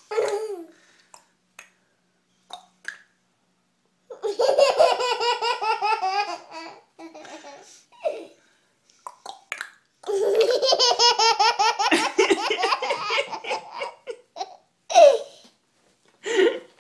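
Toddler laughing hard in two long fits of rapid, pulsing laughter, the first starting about four seconds in and the second about ten seconds in, with short bursts of voice between them.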